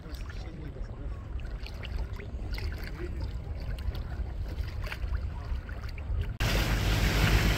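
Water lapping and splashing against a moving boat's hull over a low rumble. About six seconds in it cuts abruptly to louder rushing wind and water noise.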